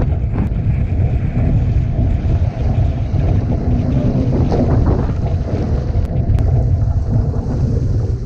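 Strong wind buffeting the microphone in a steady, loud rumble, over water rushing and splashing along the hull of a one-person outrigger canoe running downwind on swells.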